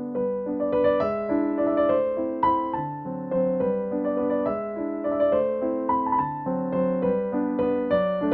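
Background music: a gentle electric piano melody with chords, the notes struck at a steady, unhurried pace.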